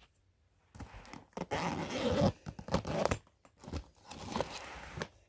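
Clear plastic backpack being handled and opened, its vinyl and contents crinkling and rustling in several irregular bursts, loudest around the middle.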